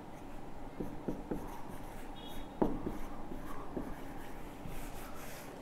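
Marker pen writing on a whiteboard: quiet scratching strokes with a few light taps of the tip, the sharpest about two and a half seconds in.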